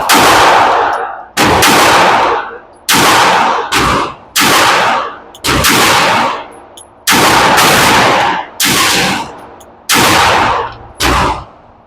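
Glock 9mm pistol fired in slow aimed shots, about ten in all, roughly one to one and a half seconds apart with a few quicker pairs, each crack trailing off in a short echo.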